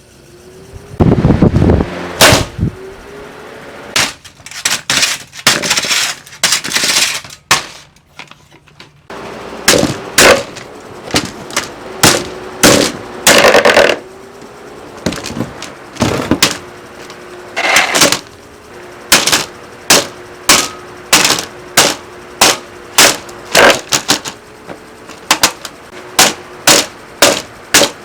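Lasko 20-inch box fan being smashed: loud, sharp hits land on it again and again over a steady motor hum. At first the hits come irregularly, in clusters. In the second half they settle into an even beat of about one to two a second.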